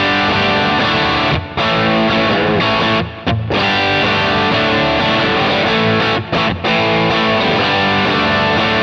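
Electric guitar played through a Kemper Profiler on a Marshall-style "Divide LDW" amp profile: overdriven chords and riffing, broken by a few brief pauses.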